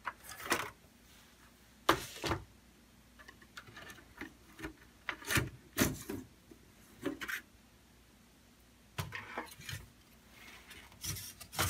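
Hot-swap hard-drive caddy being pulled out of one small tower server's drive bay and slid into another's: a scattering of separate clicks, knocks and sliding rubs of the tray in its bay rails.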